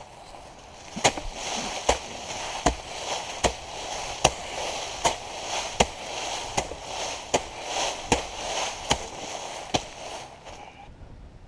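Heavy hand tool, a BigFoot 40 grub hoe, chopping and scraping through brush and dirt: about a dozen evenly spaced strikes, roughly one every 0.8 seconds, with rustling and scraping of debris between them, stopping about a second before the end.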